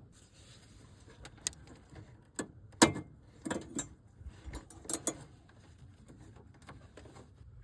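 Light clicks and rattles of a headlight bulb being twisted and pulled out of a 2006 Mercedes CLS55's headlight housing, with the sharpest click about three seconds in.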